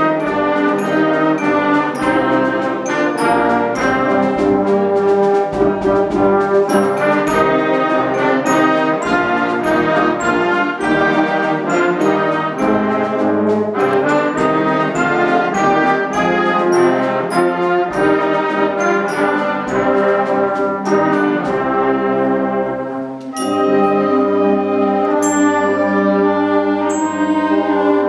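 Youth concert band playing live: trumpets, French horns, flutes and clarinets together, with a mallet percussion part struck on a xylophone-type instrument. Near the end, after a brief dip in loudness, the band moves into longer held chords.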